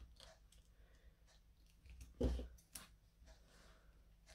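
Faint handling noises of card pieces on a craft table: scattered small ticks and a soft knock about two seconds in.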